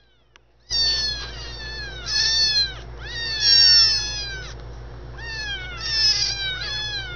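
Two young rescued kittens mewing loudly and insistently, their high-pitched cries overlapping and each one falling in pitch, starting about a second in: the kittens are crying to be fed.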